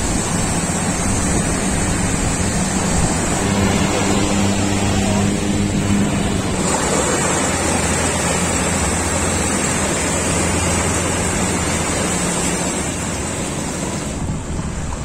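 Small waves washing onto a sandy beach, with wind buffeting the microphone. Underneath runs a steady low drone of a boat engine, clearest through the middle.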